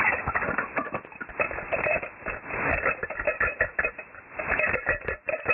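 Key bunch jingling, heard in the ultrasonic range: picked up by a MEMS microphone and shifted down to audible by an SDRplay RSPdx software-defined receiver, it comes out as irregular crackling clicks and rustles, dull with no treble.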